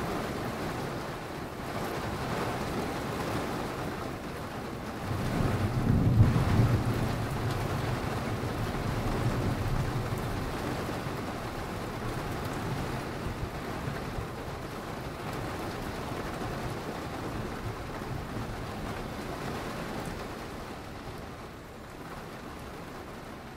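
Steady rain falling, with a rumble of thunder that swells about five seconds in and dies away over several seconds.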